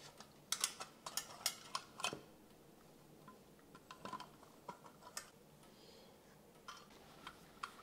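Faint, scattered metallic clicks and taps as a brushed nickel shower valve trim plate is worked by hand onto its mounting screws. A screwdriver clicks on a screw near the end.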